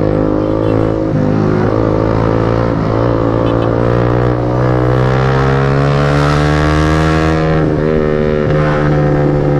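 Yamaha motorbike engine heard from the rider's position, running under throttle in traffic. Its pitch dips a few times in the first three seconds, climbs steadily for about three seconds as the bike accelerates, and drops back about three-quarters of the way through. Wind rushes on the microphone while it is at speed.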